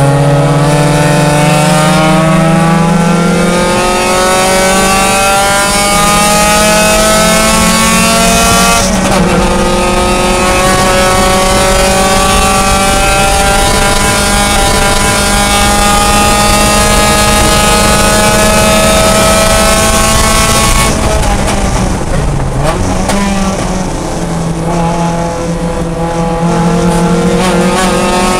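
Mazda Miata race car's four-cylinder engine at full throttle, heard from inside the stripped cabin. The pitch climbs for about nine seconds, drops with an upshift, and climbs again for another twelve seconds. Near the end the driver lifts off, the pitch falls through a downshift, and the engine builds again.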